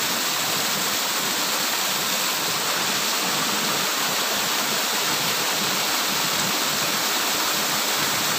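Steady, noisy rush of water from a small cascade where a fish pond's outflow spills into a pool below.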